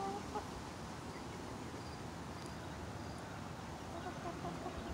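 Faint, soft clucks from backyard chickens, once near the start and again about four seconds in, over a steady outdoor hiss.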